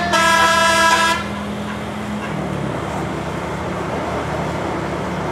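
Bus telolet horn, a set of musical air horns, ending its tune on a held chord of several notes that cuts off suddenly about a second in. Then the bus runs on with engine and road noise, its low hum dropping in pitch about two and a half seconds in.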